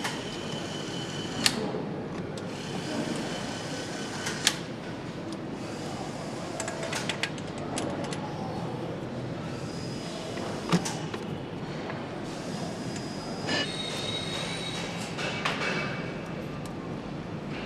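Assembly-line noise from BMW motorcycle engine assembly: a steady hum of the plant broken by sharp clicks and knocks of parts and tools, several with a brief ringing after them.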